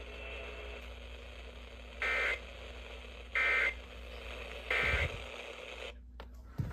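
Emergency Alert System end-of-message tones: three short bursts of buzzing SAME digital data, a little over a second apart, marking the end of the broadcast severe thunderstorm warning.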